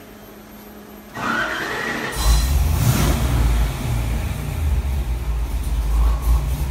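The starter of a Ford 331 stroker small-block V8 whirs with a rising whine for about a second. Then the engine catches, about two seconds in, and settles into a steady, loud idle.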